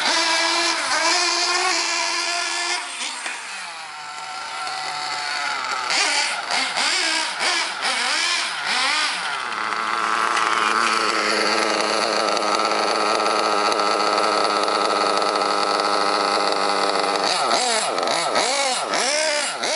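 Nitro glow-fuel engine of a 1/8-scale RC buggy running, revving up and down with the throttle, then holding a steady high note for several seconds before revving again near the end.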